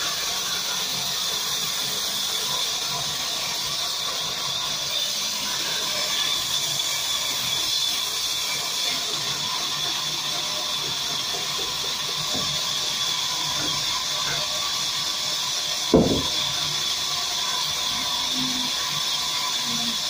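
Sawmill vertical band saw running with a steady high-pitched whine and hiss as a log is worked against the blade. One sharp knock about sixteen seconds in.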